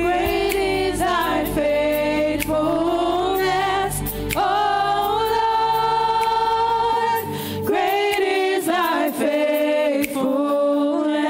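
A woman sings a slow gospel worship song into a microphone, with vibrato and a long held note in the middle. Low steady tones sit underneath and stop about two-thirds of the way through.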